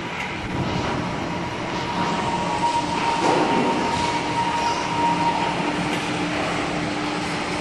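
Inverted roller coaster train rolling through an enclosed station: a steady rumble of wheels on steel track with a faint whine, swelling briefly about three seconds in.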